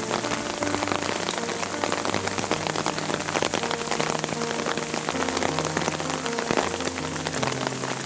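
Steady rain falling on leaves and wet ground, a dense spatter of individual drops. Background music holds long, low notes underneath.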